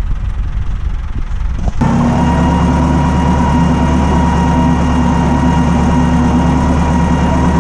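Wind buffeting the microphone, then about two seconds in a tractor engine running steadily at constant speed while pulling a water-wheel hole punch along plastic-mulched strawberry beds.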